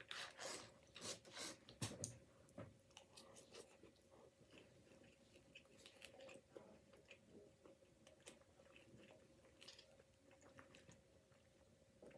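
Faint close-up eating sounds: a fork picking through poutine in a paper bowl, and chewing, a run of small clicks and wet smacks that are loudest in the first couple of seconds. A faint steady hum runs underneath.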